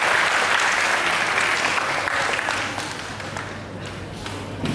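Audience applauding. The clapping is dense at first, then thins into scattered claps and dies away over the last couple of seconds.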